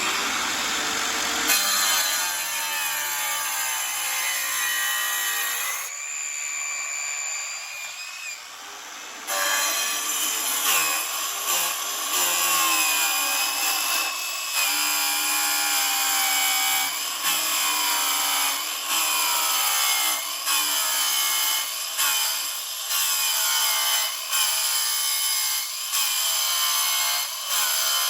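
A power saw or grinder running and cutting. It is quieter and thinner for a few seconds early on, then louder again, dipping briefly every second or so as it works through the material.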